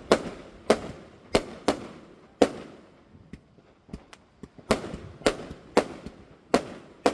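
Fireworks going off: a string of about a dozen sharp bangs at irregular intervals, each trailing off in an echoing rumble, with a few fainter distant pops in a lull near the middle.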